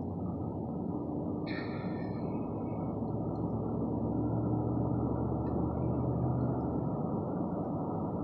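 Car driving, a steady engine and road rumble that grows slightly louder, with a brief high-pitched tone about two seconds in.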